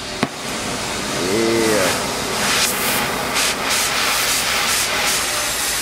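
Oxy-fuel cutting torch being lit with a spark striker: a sharp click as it catches, then the torch flame hissing steadily. The hiss swells and eases a few times as the flame is adjusted.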